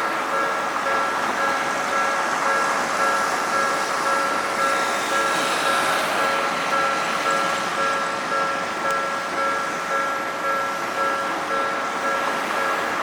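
Electronic railroad crossing alarm on a Toden Arakawa Line tram crossing, ringing a steady, evenly repeating high electronic tone over street noise.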